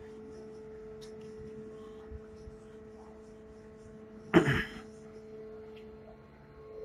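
Steady low electrical hum with a few faint ticks, and one short, loud noise about four seconds in.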